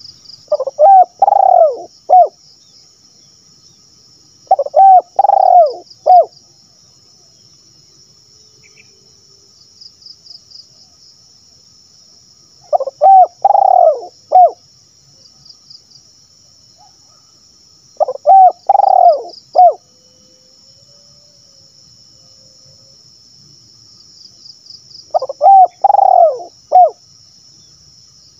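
Spotted dove cooing in the sibero call style used to lure other doves: five loud phrases of three or four coos each, spaced several seconds apart.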